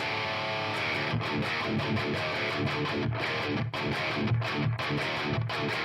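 Headless multiscale six-string electric guitar played with overdrive: a chord rings for about a second, then gives way to fast, choppy, muted riffing with short stops.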